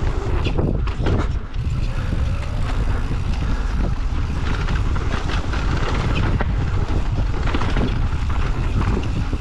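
Wind buffeting the camera microphone over the rumble of mountain bike tyres on a dirt trail at speed, with scattered rattles and clacks from the bike over bumps.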